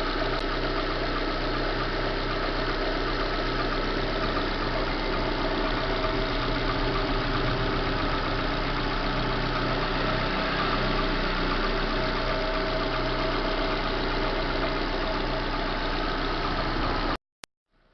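Chevrolet Corsa Classic 1.0 VHCE engine idling steadily with a scraping noise from the timing-belt end, as if one part is rubbing on another; the cause turns out to be a failing water pump and a scraping timing-belt tensioner. The sound cuts off suddenly near the end.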